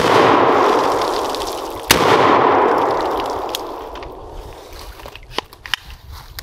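Two shots from a Springfield Armory SAINT Victor AR pistol, about two seconds apart, each followed by a long echo that dies away over two to three seconds. A few faint clicks follow near the end.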